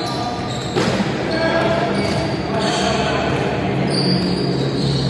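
Indoor volleyball game in a large hall: a few sharp ball hits over a steady din of players' voices, all echoing.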